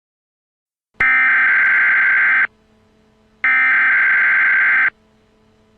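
Emergency Alert System SAME header data bursts: two loud, buzzy electronic bursts, each about a second and a half long, the first starting about a second in, with about a second between them and a faint hum in the gap.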